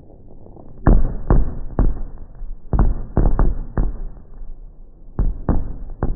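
Aerial fireworks shells bursting: an irregular string of about ten loud bangs beginning about a second in, some in quick pairs, each with a short echoing tail.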